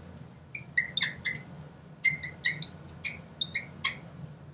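Chalk squeaking against a blackboard while writing: a dozen or so short, high squeaks in an irregular rhythm, one with each stroke.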